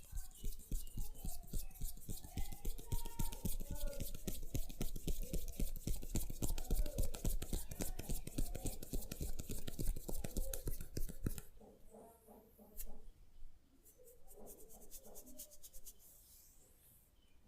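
A fast, even run of crisp clicks close to the microphone, about ten a second, that stops about eleven seconds in. After it come softer, scattered clicks and rustling.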